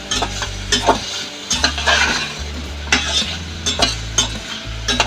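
Raw chicken pieces sizzling as they fry in butter with minced ginger and garlic, while a spatula stirs them, scraping and knocking against the pan over and over.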